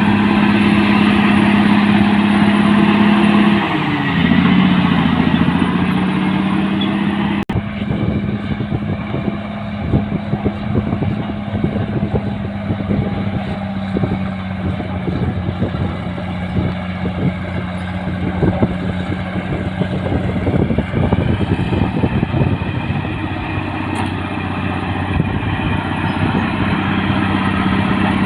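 Caterpillar D6R bulldozer's diesel engine running steadily under load, its pitch dipping and recovering about four seconds in. After a brief cut, irregular clanking and rattling from the tracks and machine join the engine drone for a while, then ease off.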